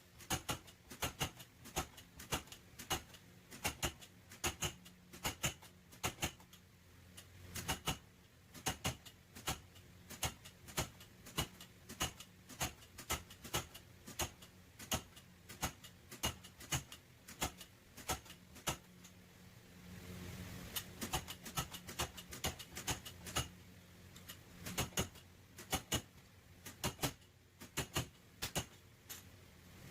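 Metal hammer tapping on car-body sheet metal, about two or three sharp knocks a second with a short pause past the middle: panel beating a dented rear panel back into shape.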